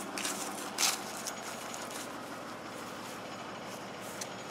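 International D1310 truck engine idling steadily, running smoothly. A short scuffing noise about a second in.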